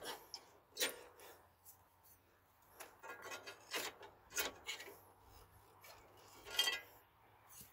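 Metal hand tools scraping and clinking against an ATV's front brake caliper while it is pried at. There is a handful of separate scrapes and knocks, and the loudest, near the end, carries a short metallic ring.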